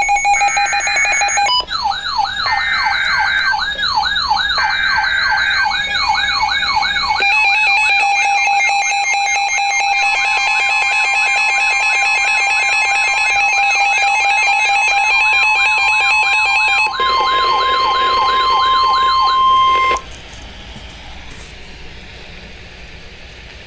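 Emergency alert alarm: several electronic siren tones layered together, sweeping up and down about twice a second, with warbling and beeping tones above them. About ten seconds in, a steady single attention tone joins them. Everything cuts off suddenly about twenty seconds in, leaving a faint hiss.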